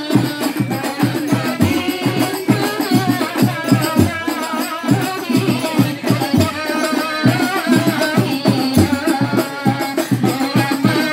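Rebana frame drums beating a fast, steady rhythm with rattling jingles, and a wavering melody carried over the beat.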